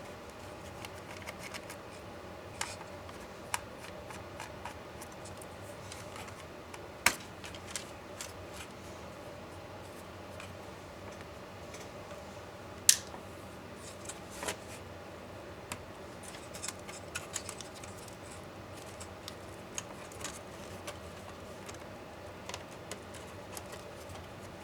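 Scattered small clicks and taps of hand tools and parts while an MSI GT72VR laptop is being taken apart, two of them sharp and loud, about a third of the way in and just past halfway, over a steady low hum.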